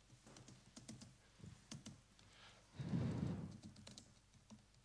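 Faint typing on a computer keyboard: irregular scattered keystrokes as text is entered. A brief low, muffled noise about three seconds in is the loudest thing.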